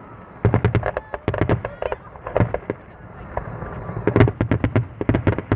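Fireworks finale: rapid volleys of sharp bangs in clusters, densest and loudest about four seconds in.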